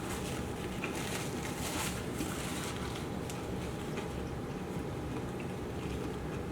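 Close-miked chewing and soft mouth sounds of someone eating fried fast food, with scattered small wet clicks, most frequent in the first couple of seconds, over a steady low hum.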